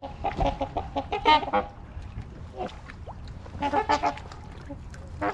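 Trumpeter swans honking: a run of short, horn-like calls in the first second and a half, a lone call, then another bout about four seconds in.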